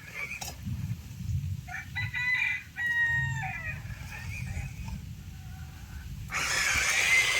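A rooster crowing once, about two seconds in, a single call of about a second and a half over a low rumble. Near the end a louder rushing hiss sets in.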